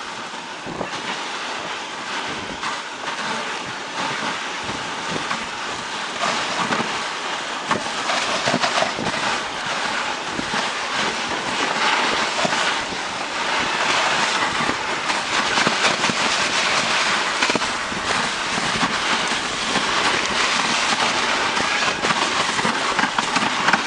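Dog sled gliding over snow: its runners hiss and scrape in a continuous rushing noise, broken by many short knocks and jolts, with wind on the microphone. The noise grows louder about eight seconds in.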